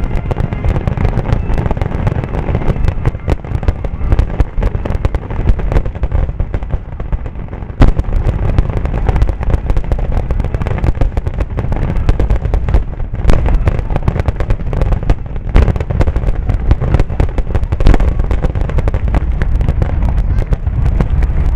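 Finale barrage of aerial display fireworks: shells bursting in rapid, overlapping booms that run together into a near-continuous rumble. A few single louder bangs stand out, about 8, 13, 16 and 18 seconds in.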